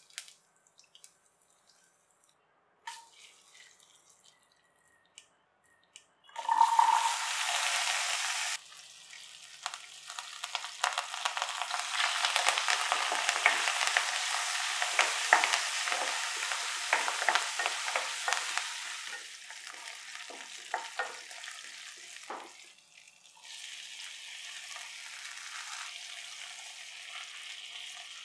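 Whole shallots, curry leaves and dried red chillies frying in hot oil with tempering spices in a pan. The first few seconds are quiet apart from a few faint clicks. A sudden loud sizzle comes about six seconds in, then steady sizzling with the scrape and tap of a spatula as they are stirred.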